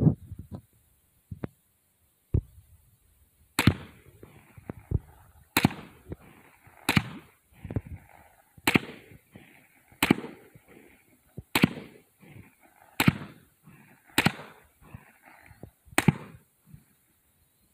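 AR-15 rifle firing a slow, steady string of single shots, roughly one every second and a half, each crack followed by a rolling echo.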